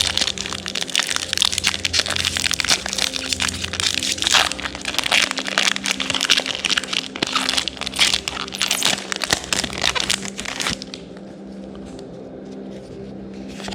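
Foil booster pack wrapper crinkling and crackling as it is torn open and crumpled by hand, dense for about eleven seconds, then stopping.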